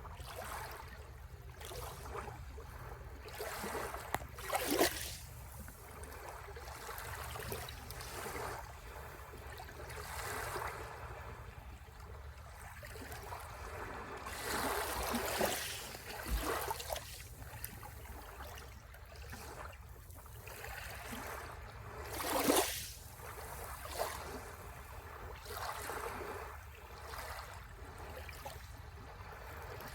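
Ocean waves washing onto the shore: surf surges that rise and fall every few seconds over a steady low rumble. The loudest crashes come about five seconds in and again near twenty-two seconds.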